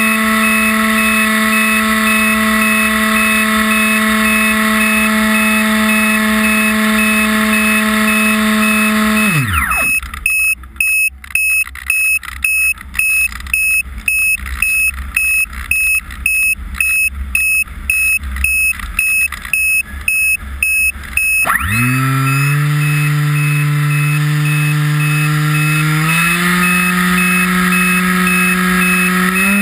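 Model aircraft's motor whining steadily, then throttled right down about a third of the way in. A high electronic beep then repeats about twice a second for some eleven seconds. Near the end the motor spins back up, its pitch rising in steps.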